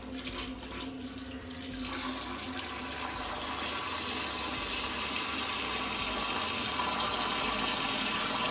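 Kitchen tap running into a cooking pot, filling it with water over the pork pigtail; the steady rush of water grows louder over the first few seconds.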